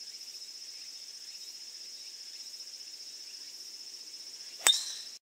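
Steady chorus of crickets or cicadas, a high even buzzing. Near the end, a single sharp click with a brief metallic ring, after which the sound cuts off abruptly.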